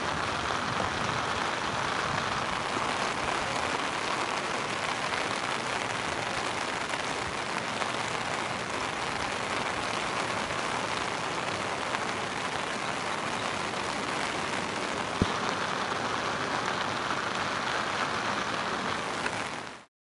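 Steady hiss of heavy rain falling on a river surface, with a single sharp tap about three-quarters of the way through. The rain cuts off abruptly just before the end.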